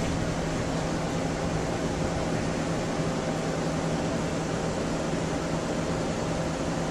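Fans and machinery running steadily in a food truck's kitchen: an even hiss with a low, steady hum underneath.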